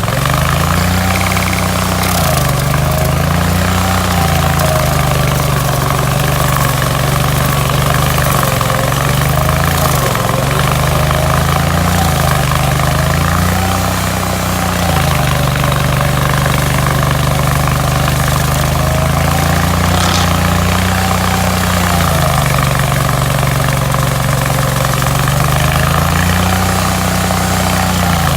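Hydraulic stump grinder's engine running hard, its pitch repeatedly dragged down and climbing back: the engine lugging under the load of grinding the stump and recovering between cuts.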